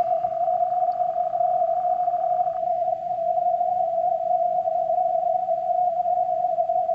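Yaesu FTDX10 HF transceiver receiving on the 30-meter band through a narrow CW filter: the band noise comes through as a steady, mid-pitched rushing tone with no Morse keying on it. A fainter, higher hiss behind it stops about two and a half seconds in.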